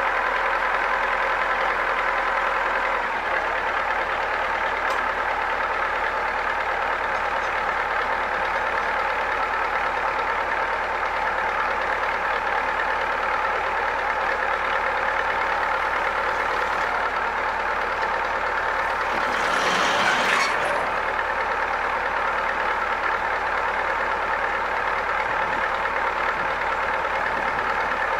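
Engine of an E303 self-propelled hay mower running steadily after start-up, the machine being run to check that a newly fitted cutter-bar knife seats properly. About 20 s in there is a brief louder rushing swell.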